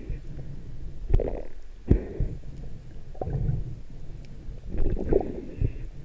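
Muffled underwater water noise picked up through a camera housing: irregular whooshing swells about once a second from a freediver moving through the water along the spear line, with a few sharp clicks.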